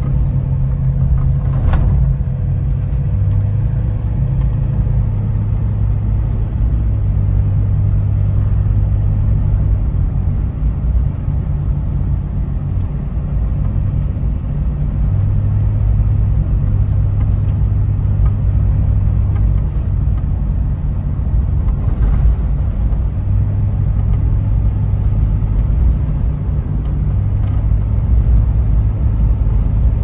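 Jeep Wrangler LJ Unlimited's 4.0-litre inline-six and its tyres on snowy gravel, heard inside the cabin as a steady low drone while the Jeep drives along. There is a brief knock about two seconds in.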